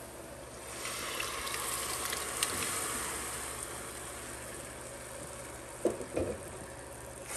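Boiled mung beans and their cooking liquid poured from a pot into a pan of onion and garlic frying in hot oil. The pan hisses and sizzles as the liquid hits it, swelling about a second in and then slowly dying down. Two dull knocks come near the end.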